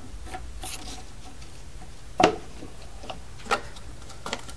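A few light wooden knocks and rubs as small shims are set on top of the router sled's wooden rails. The loudest knock comes about two seconds in, over a low steady hum.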